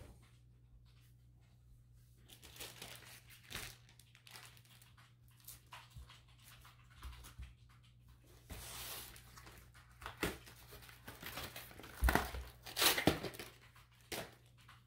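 Paper and plastic packaging rustling, crinkling and tearing as a new picture frame is unwrapped and handled, with a few knocks of the frame being set down, loudest a little after the middle.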